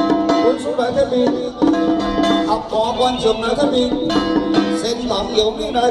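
Instrumental music with a melody of plucked-string notes.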